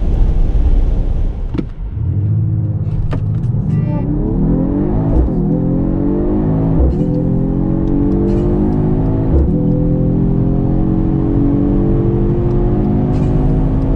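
Mercedes-AMG GT 53's turbocharged 3.0-litre inline-six, heard from inside the cabin, pulling hard under full throttle. The engine note climbs, drops sharply at each quick upshift about 5, 7 and 9.5 seconds in, and once more near the end. It climbs more slowly in each higher gear. For the first couple of seconds there is only steady road and wind roar at high speed.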